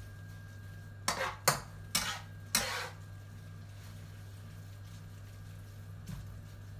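A metal spatula scrapes and tosses thin rice noodles around a nonstick wok while they are stir-fried to soften. Four quick strokes come between about one and three seconds in, and a fainter one comes near the end, over a steady low hum.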